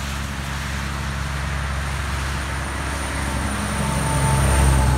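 A semi truck pulling a box trailer approaches and passes below on a wet highway: diesel engine drone and tyre hiss on wet pavement, growing louder to a peak near the end.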